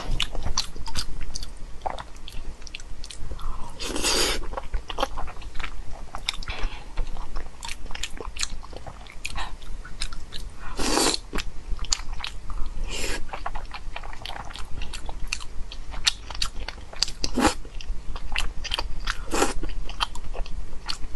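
Close-miked eating sounds: wet chewing and lip smacking on saucy meat, with frequent small clicks. Four longer, louder slurps stand out, about 4, 11, 13 and 19 seconds in.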